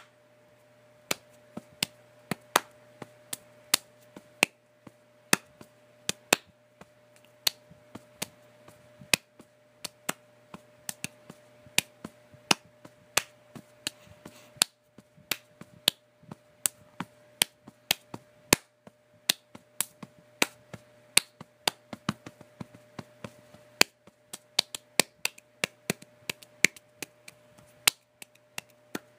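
Irregular sharp clicks, about three a second, over a faint steady hum and a thin steady tone.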